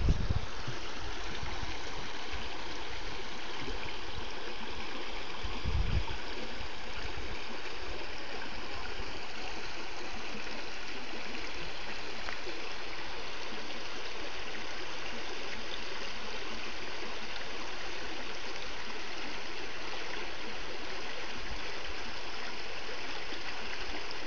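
Shallow stream running over rocks, a steady rushing babble of water. A brief low thump about six seconds in.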